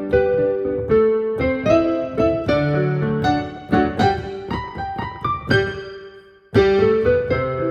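Background piano music, individual notes struck in a flowing melody; it thins out and fades around six seconds in, then picks up again with a strong chord.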